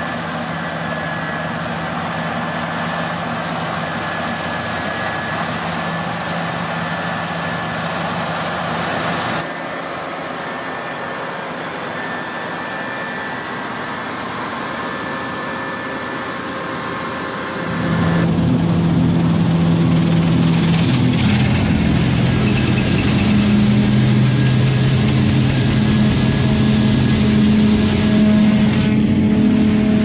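Claas Lexion combine harvesters running while harvesting wheat: a steady engine and threshing drone with a few steady whining tones. A little over halfway through, it gets louder and a deep engine hum comes in.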